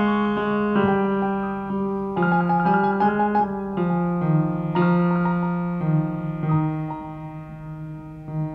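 Piano playing slow music, chords and melody notes struck about once a second and left to ring and fade.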